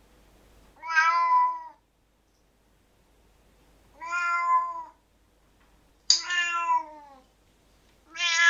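A cat meowing four times, each meow under a second long and a couple of seconds apart; the third starts sharply and slides down in pitch.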